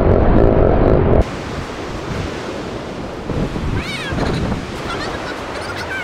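Ocean surf breaking on a sandy beach, with wind buffeting the microphone loudly for about the first second before a sudden drop. A few short, high, wavering calls come through over the surf about two-thirds of the way in and again near the end.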